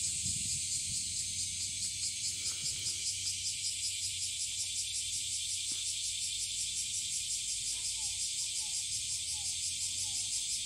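Chorus of summer insects: a dense, high-pitched steady drone that pulses a few times a second, with a few faint short chirps near the end.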